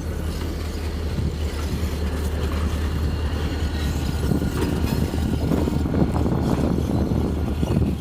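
An engine idling with a steady low hum, joined about four seconds in by a rougher rumble that grows louder.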